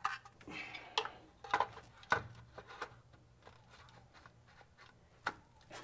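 Light clicks and knocks of a distributor cap and its wires being handled and fitted onto a distributor in an engine bay. There are about five sharp clicks in the first two seconds and one more near the end.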